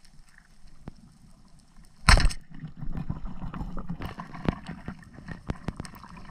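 Underwater sound picked up by a free diver's camera: a sudden loud thump about two seconds in, then steady water noise with many sharp clicks and ticks as the diver moves.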